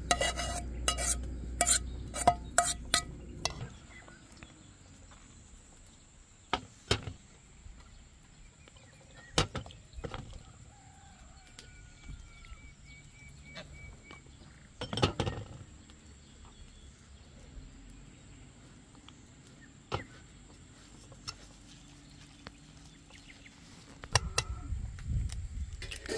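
Metal spoon knocking and scraping against a steel dish and aluminium mixing bowl: a quick run of clinks for the first few seconds, then a few separate clinks and knocks.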